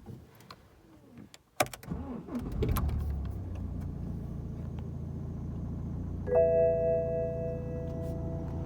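A 2011 BMW 1 Series engine cranks and starts after a few clicks, then settles into a steady idle. About six seconds in, a loud, high squeal with several steady tones sets in over the idle and holds: the squeaking noise the car makes on starting.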